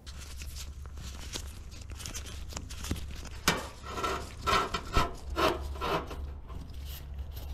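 Close handling noise: a hand and sleeve rubbing and scraping against engine parts while the leak-down tester's hose is fitted into the spark plug hole. A run of louder scuffs comes in the second half, over a steady low hum.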